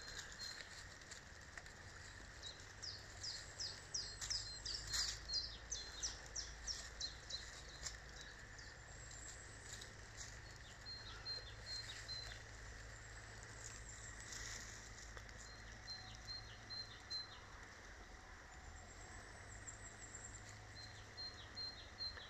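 Songbirds singing in woodland: a long run of quick, high repeated notes in the first few seconds, then short phrases of repeated notes every five or six seconds.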